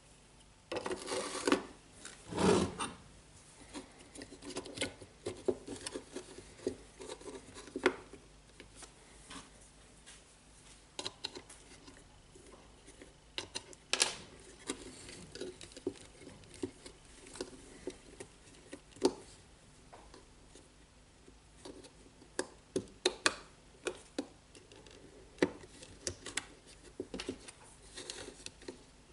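Plastic parts of a disassembled DeWalt cordless drill being handled: scattered clicks, taps and rubbing as the trigger switch and its wires are fitted into the housing half. The handling is loudest and busiest in the first few seconds.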